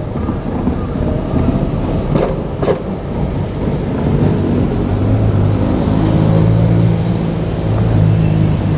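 A train passing close by: a heavy, continuous rumble with two sharp knocks a little over two seconds in, then a steady low drone from about five seconds in.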